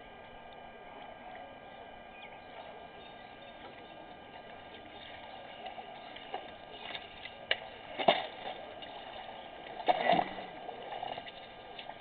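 Water splashing and gurgling as an elephant drinks, with two louder splashes about eight and ten seconds in, over a steady background hiss.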